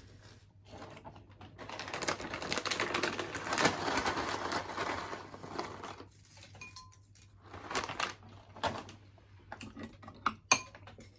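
Close-miked eating: a few seconds of dense, crackly chewing made of many small wet clicks, then a few separate clicks near the end.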